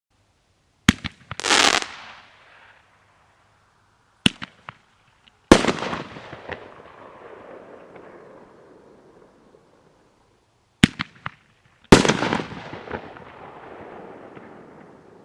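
Consumer aerial fireworks going off three times. Each shot gives a sharp crack as it launches and a louder burst about a second later as it breaks, followed by crackling and echo that die away over a few seconds.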